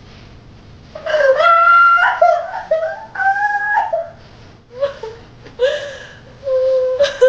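A woman's drawn-out screams and wails of pain, several high cries in a row starting about a second in.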